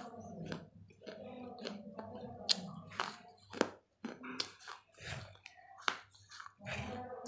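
Biting and chewing pieces of a fired clay pot (matki): a string of sharp crunches between quieter grinding chews, the loudest crunch about two and a half seconds in.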